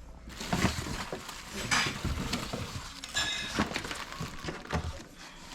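Hands rummaging through a box of bike parts and packaging: rustling with small knocks and clinks, and a brief metallic ring about three seconds in.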